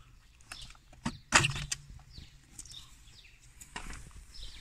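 Plastic hubcap being pulled off a car's steel wheel. It pops loose with a sharp snap about a second in, with a few lighter clicks around it.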